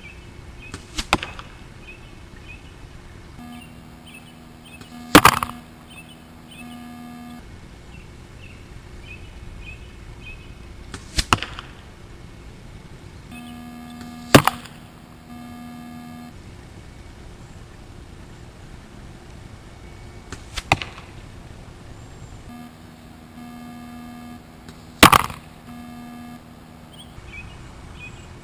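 Compound bow shooting three arrows about ten seconds apart: Beman ICS Bowhunter shafts with 100-grain field tips, fletched with Flex Fletch SK-300, then SK-200, then 3-inch Norway Fusion vanes. Each shot is heard as a short snap of the release and, a few seconds on, a louder sharp smack of the arrow striking the target.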